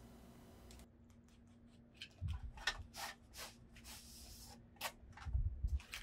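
A knife slicing through the packing tape on a box in a run of short scraping strokes, with a couple of dull thumps as the package is handled, once about two seconds in and again near the end.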